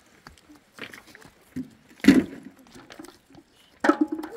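Scattered knocks and clatter, with a loud burst about two seconds in, and a child's short call near the end.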